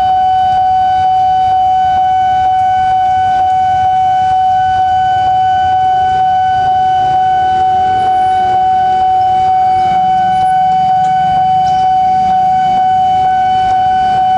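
Railway level-crossing warning alarm sounding one steady, unbroken electronic tone, over the hiss of heavy rain.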